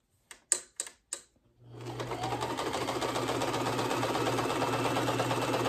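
Electric sewing machine stitching a seam through two layers of cotton fabric: it starts about one and a half seconds in and runs at a steady, even speed, a constant hum under fast needle ticking. A few sharp clicks come just before it starts.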